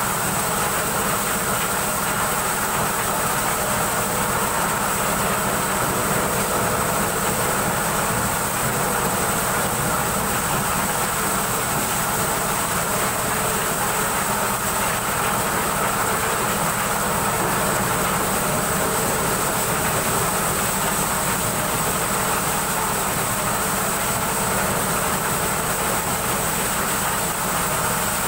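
Engine-driven corn sheller running steadily while shelling corn cobs: a continuous, unchanging mechanical din with a high whine over it.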